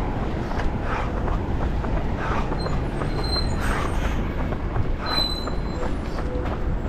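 Continuous low wind and movement rumble on a runner's action-camera microphone, with a regular pulse a little slower than two a second from the runner's stride. Two brief high squeaks come in the middle.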